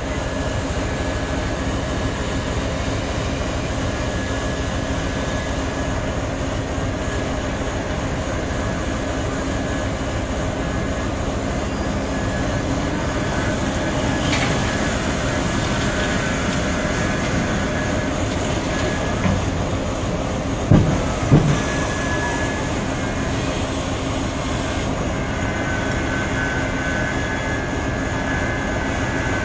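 Heavy mining machinery working: the steady drone of a large Komatsu hydraulic mining excavator and haul trucks, with a high whine that comes and goes and a few heavy thuds about two-thirds of the way through.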